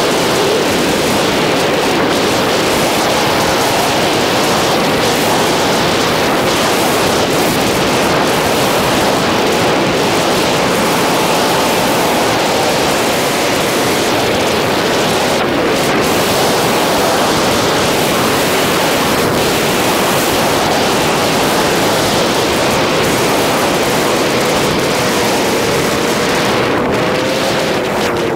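Heavy wind rush buffeting a helmet-mounted microphone on a motorcycle at road speed, with the bike's engine note faintly underneath, drifting up and down in pitch.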